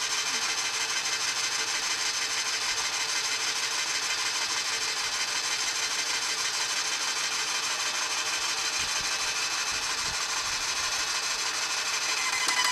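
Airless paint sprayer running steadily as it is flushed with water, its pump drawing water up the suction hose and pushing it back out through the drain hose into the bucket. It is a continuous mechanical hiss that grows louder just before the end.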